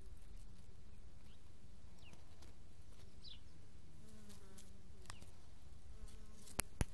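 Honeybee's wings buzzing faintly as it moves about and lifts off a dandelion; the buzz comes in about four seconds in and again near the end, over a steady low rumble. Two sharp clicks near the end are the loudest sounds.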